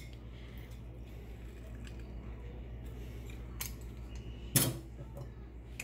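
Kitchen utensils being handled: a few light clicks and one sharp click about four and a half seconds in, over a steady low hum.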